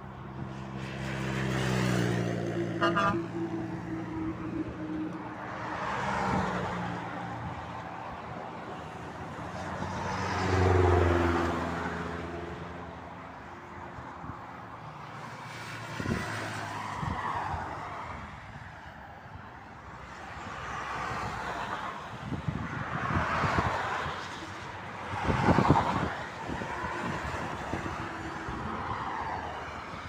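Motorway traffic passing: motorcycles, cars and lorries go by one after another, their engine and tyre noise swelling and fading several times.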